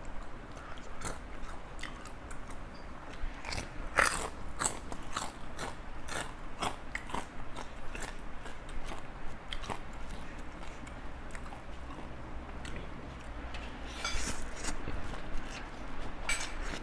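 Close-up eating sounds: a person biting and chewing crunchy food, with irregular sharp crunches that come thickest about four seconds in and again near the end.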